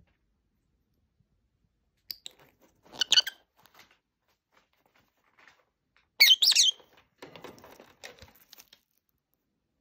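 Lovebirds giving short, high chirps: a brief one about two seconds in, a louder cluster about three seconds in and the loudest calls about six seconds in. Near the end comes a scratchy rustling and crunching as a bird chews at shredded cardboard.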